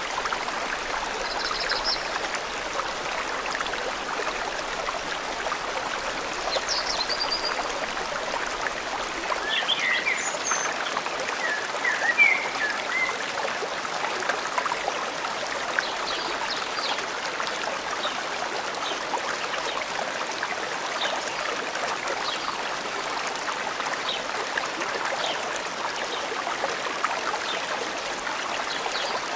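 Steady rushing and trickling of a forest stream, with short bird chirps scattered over it and a brief flurry of them near the middle.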